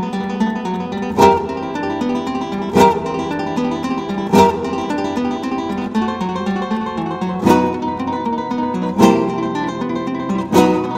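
Background music led by acoustic guitar, with a sharp accented stroke about every second and a half.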